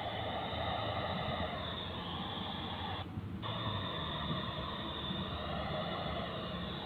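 Handheld amateur radio transceiver receiving a weak ISS downlink: steady FM static hiss from its speaker, with a short dropout about three seconds in.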